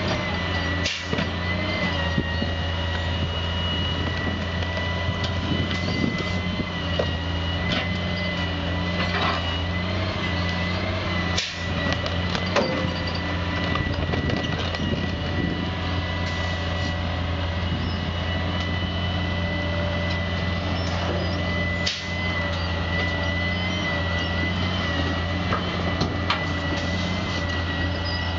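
Grapple truck's engine and hydraulic crane running steadily, with a high, steady whine over a low hum and a few faint knocks as the grapple handles debris.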